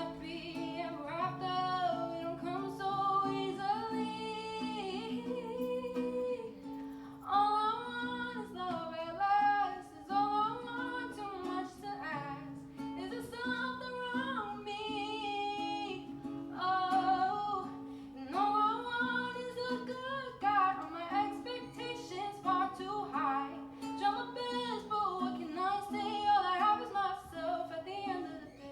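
A solo voice singing a melody over a plucked acoustic string accompaniment.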